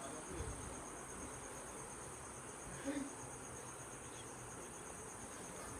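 Insects shrilling steadily in the surrounding vegetation, a high, rapidly pulsing trill that carries on without a break. One brief, soft sound stands out about three seconds in.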